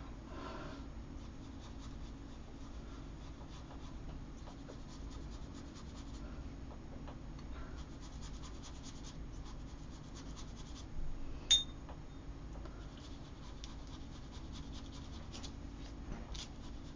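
Wet paintbrush scrubbing over paper, faint scratchy strokes in spells, as it wets water-soluble oil pastel swatches to dissolve them into watercolour. A single sharp click about two-thirds of the way through.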